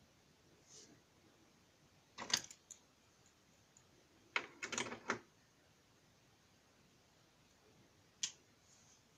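A few short, sharp clicks and clatters over faint room hiss: a brief burst about two seconds in, a quick cluster around four and a half to five seconds, and one single click near the end.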